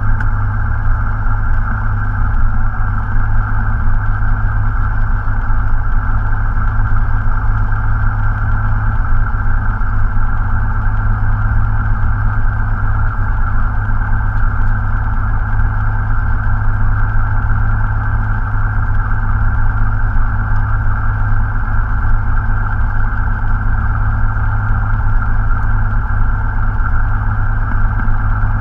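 Cessna 172 Skyhawk's piston engine and propeller running steadily at an unchanging speed, heard from inside the cockpit.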